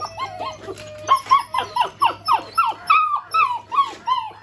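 Several black German Shepherd puppies whining and yipping together in short cries that fall in pitch, several a second, getting louder about a second in.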